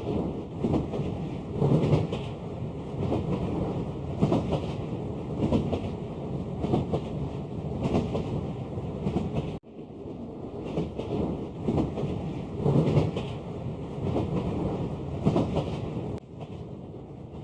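Toy Vienna U6 metro train running on its sectional track, its motor and wheels rumbling and clattering steadily, with a louder clack about once a second. The sound cuts out for an instant about ten seconds in.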